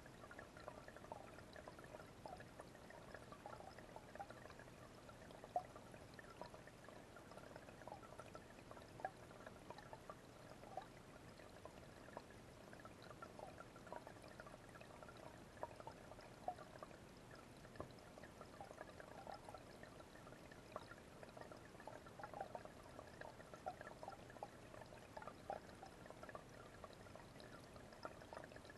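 Small garden-pond waterfall splashing steadily into a fish pond, faint, with many little irregular plinks of falling drops.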